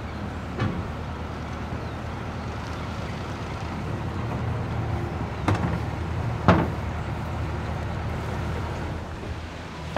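Narrowboat diesel engine running steadily at low revs as the boats are towed, with three sharp knocks: one near the start, and two about a second apart in the middle, the second of those the loudest.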